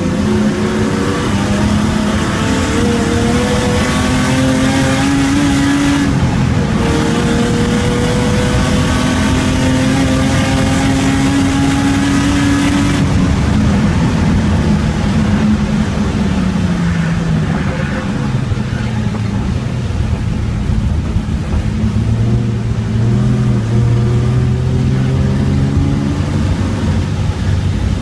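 Race car engine heard from inside the cabin on a wet circuit, with tyre and road noise under it. For the first half it revs up under power, shifting up about six seconds in. A little after halfway it comes off the throttle, and its pitch falls as the car slows. Near the end it pulls again at low revs.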